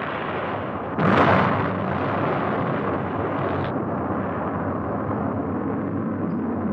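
Rocket roar with a sudden loud blast about a second in, then a steady rumbling roar.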